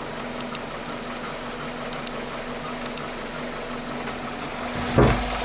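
Toyota 7A-FE lean-burn four-cylinder engine idling steadily with a misfire: the second cylinder drops out, which the mechanic thinks may be a tight exhaust valve. A brief louder thump comes near the end.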